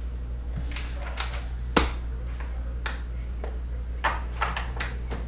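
Hands rummaging through supplies on a counter: a sharp click a little under two seconds in, then lighter clicks and rustles around the three- and four-second marks, over a steady low electrical hum.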